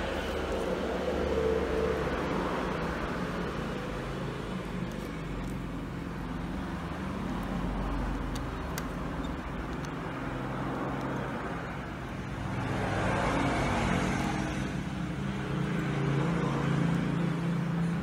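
Steady background road-traffic noise, a low hum and hiss that swells for a few seconds about two-thirds of the way through as a vehicle passes, with a few faint clicks.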